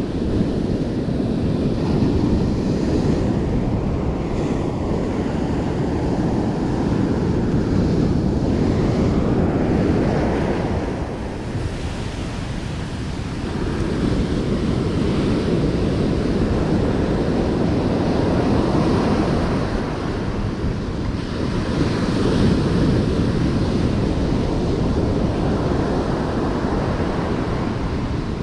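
Ocean surf breaking and washing up a sandy beach, a steady roar that swells and eases with the waves and dips briefly about twelve seconds in, with wind buffeting the microphone.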